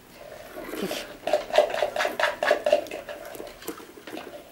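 Stainless steel puppy food bowl clinking and rattling quickly, about six clinks a second for a couple of seconds, as a puppy eats from it.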